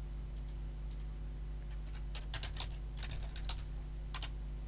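Typing on a computer keyboard: a run of irregular keystrokes, busiest in the middle.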